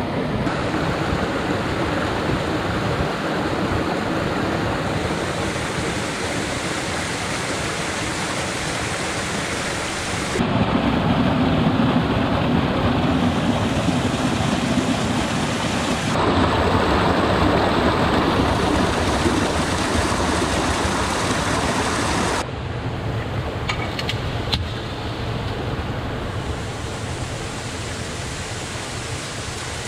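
Water rushing over rocks in a small mountain stream cascade, a steady noise that jumps in loudness and tone at several cuts and is loudest in the middle. A few light knocks come near the end.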